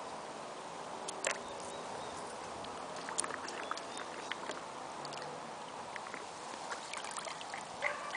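Large dog lapping water from a plastic bowl: irregular wet laps and small splashes that start about three seconds in and come faster near the end.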